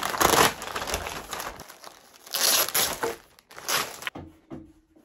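Plastic packaging crinkling and rustling in several bursts as a grey poly mailer is handled and a cap is pulled out of a clear plastic bag. The rustling is loudest in the first second and again about two and a half seconds in, and softens near the end.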